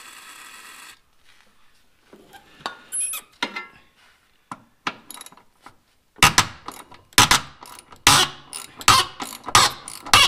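A second-long hiss of an aerosol can of penetrating lubricant sprayed onto a seized leaf-spring hanger bolt. This is followed from about six seconds in by a ratchet clicking sharply, about three clicks a second, as the bolt is worked with a socket on a long extension; the bolt is probably just spinning in its captive nut.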